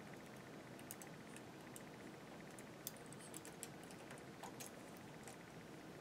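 A handful of faint, irregular light clicks of a latch tool hooking stitches and working against the metal needles of a knitting machine, over near-silent room tone.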